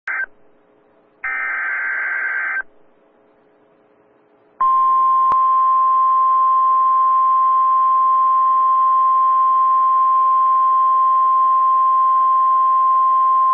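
Emergency Alert System severe thunderstorm warning received on NOAA Weather Radio: the end of one SAME data burst, then a full burst about a second in, each a harsh buzzy digital screech. About four and a half seconds in, the single steady 1050 Hz warning alarm tone starts and holds for about nine seconds over faint radio hiss.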